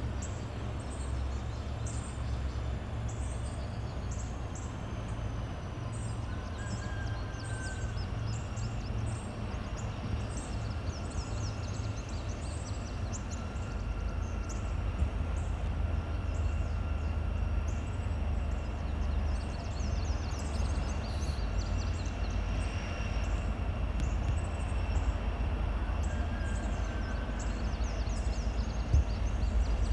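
Outdoor ambience: a steady low rumble that grows a little louder near the end, with short high chirps repeating throughout.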